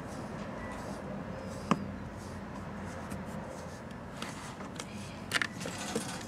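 Light scraping and clicking from a wooden cat-wand stick rubbing against a sisal scratching post as a kitten bats at it, over a steady low hum. One sharp tap comes about two seconds in, and a cluster of small clicks and scrapes near the end.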